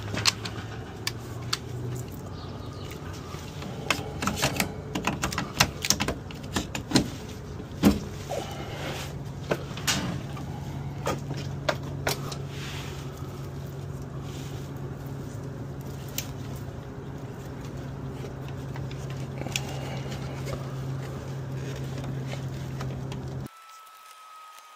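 Scattered metallic clicks and knocks from breakers and wires being handled inside an electrical breaker panel, over a steady low hum. The clicks are thickest in the first half. The sound drops away suddenly near the end.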